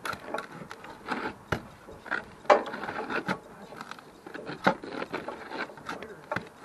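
Irregular knocks, taps and scrapes of a steel pry bar working on an asphalt-shingle roof as the flashing is pried off, with two sharper clacks about two and a half seconds and just under five seconds in.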